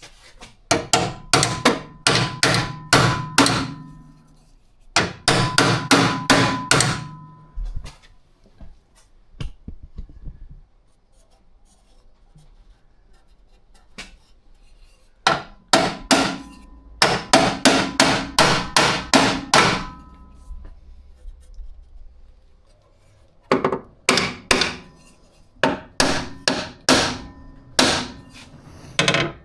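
Hammer blows on the sheet steel of a car's radiator support cradle, coming in four runs of quick strikes with pauses between, each run ringing slightly.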